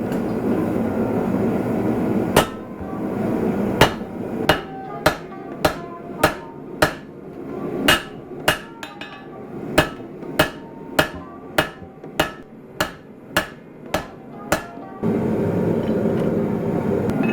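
Hand hammer striking hot Damascus steel on an anvil, about eighteen ringing blows coming roughly two a second: half-face blows drawing the transition between blade and tang of a chef's knife. A steady rushing noise fills the start, before the first blow, and returns after the last.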